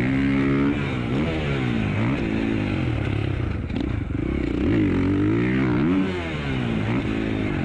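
Husqvarna dirt bike engine under riding load, heard close up from the onboard camera. The pitch climbs and drops back again and again as the throttle is opened and closed.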